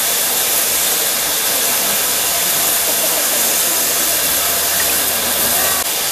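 Midland 4F 0-6-0 steam locomotive No. 43924 venting steam: a loud, steady hiss.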